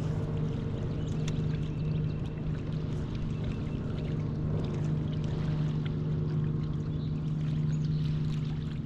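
Bass boat's electric trolling motor humming steadily as it moves the boat along the bank, with water lapping at the hull.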